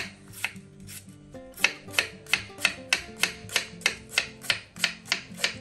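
Kitchen knife slicing crisp banana tree stem into thin strips on a wooden cutting board: a steady run of cuts, about three a second, each a short crunch and tap on the board, faint at first and regular from about a second and a half in. Soft background music underneath.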